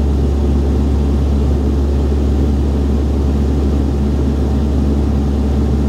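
Steady, loud drone of a De Havilland Canada Dash 8-Q300's Pratt & Whitney Canada PW123 turboprops and propellers as heard inside the passenger cabin in flight, dominated by a deep, even hum with a rushing noise above it.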